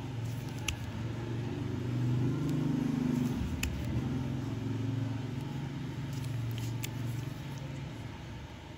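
Low hum of a vehicle engine that swells over the first few seconds and slowly fades, with a few faint ticks.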